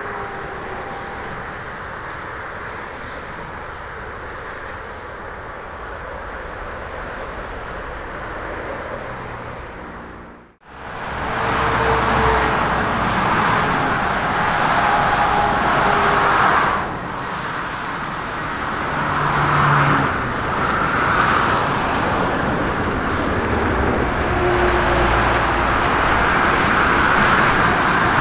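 Jet airliner engine noise, steady and moderate at first, from a Boeing 747-8 freighter after landing. It breaks off about ten seconds in and gives way to a louder, rushing jet engine noise from a McDonnell Douglas MD-11 freighter landing, which swells and eases a few times.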